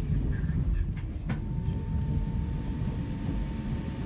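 Electric passenger train heard from inside the carriage, running on the track with a dense low rumble and a thin steady whine as it comes into a station. A single sharp click sounds about a second in.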